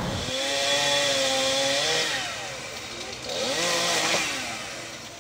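Chainsaw running and revving up and down in two stretches, the second about three seconds in, fading near the end.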